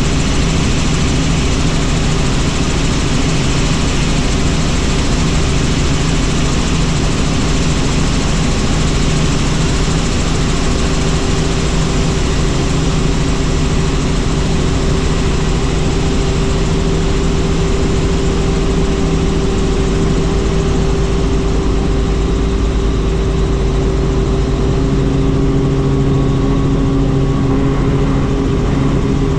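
Helicopter turbine and rotor noise, running steadily and loud, with a second steady tone joining about 25 seconds in.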